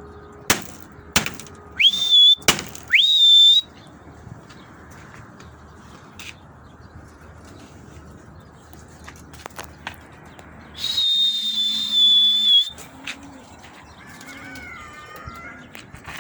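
Shrill human whistles used to signal flying pigeons, each sweeping up quickly and then held high: two short whistles about two and three seconds in, and one long whistle of about two seconds near the middle. A few sharp clicks come before the first whistles.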